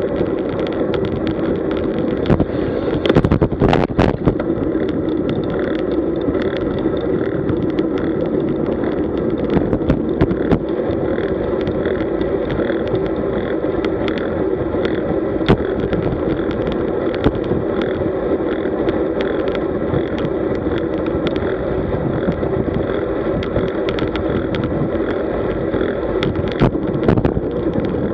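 Wind rushing over the microphone of a bike-mounted camera, mixed with road-bike tyre noise on asphalt, as the bike rides at about 30–40 km/h. A few sharp knocks about three to four seconds in, with scattered small clicks elsewhere, typical of the bike jolting over the road surface.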